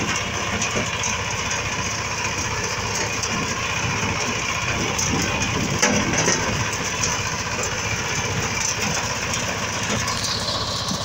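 The 9 HP diesel engine of a power weeder running steadily, with one sharp knock about six seconds in.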